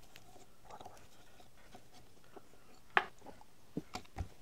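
Hex nut being turned by hand on a threaded rod at the index plate of an Ellis dividing head: faint handling and scraping of metal threads, one sharp metal click about three seconds in, and a few softer clicks and a knock near the end.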